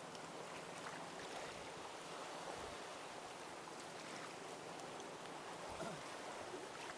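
Small waves lapping against a wooden boat's hull, a steady wash of water with a few faint knocks.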